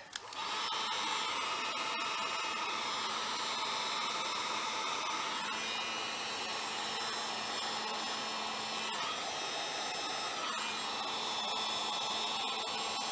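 Electric heat gun switched on and running steadily, its fan blowing hot air to shrink heat-shrink tubing over a crimped wire connector.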